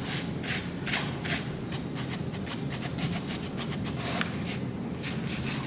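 Paintbrush rubbing across a painted pumpkin cutout in quick, repeated short strokes, feathering a little brown paint onto the surface.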